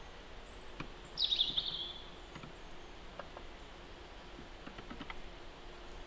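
A small songbird calls once about a second in: a thin high note, then a quick descending trill. A few faint light taps are heard in between, over a quiet outdoor background.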